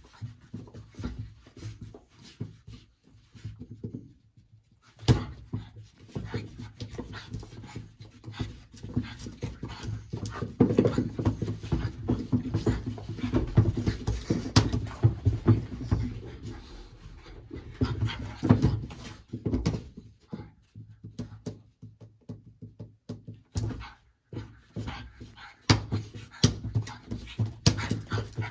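French Bulldog puppy panting hard as it plays, quick uneven breaths with a short pause about four seconds in.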